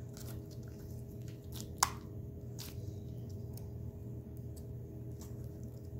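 Green slime squished and stretched between the hands, giving scattered small wet clicks and pops, with one sharper click about two seconds in. A steady low hum runs underneath.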